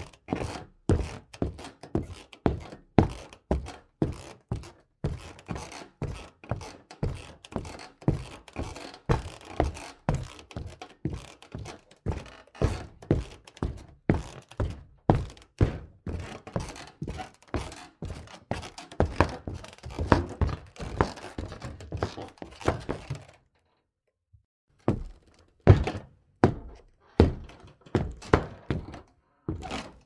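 Footsteps on wood, walking at a steady pace of about two steps a second. They stop briefly about three quarters of the way through, then start again.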